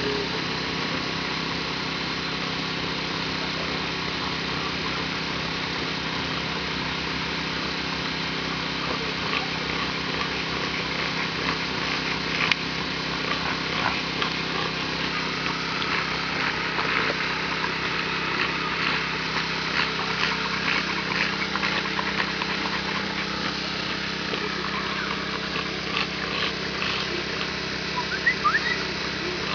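A steady motor or engine hum that does not change. Small clicks are scattered through it, and a few short rising squeaks come near the end.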